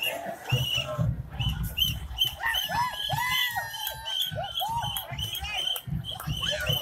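A crowd of marchers whooping and yelling, in many short rising-and-falling calls that overlap and repeat, over a run of low thumps.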